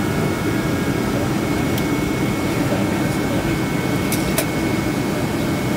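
Steady cabin noise of a jet airliner taxiing, its engines at idle under the rush of the cabin air ventilation, with a thin steady whine. Two faint clicks come about four seconds in.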